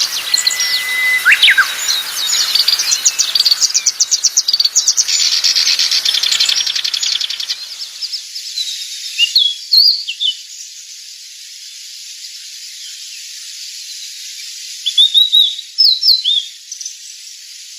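Wild songbirds singing: a dense run of rapid high chirps and trills with a short whistle for the first several seconds, then sparser, with a few short chirped phrases in the middle and near the end.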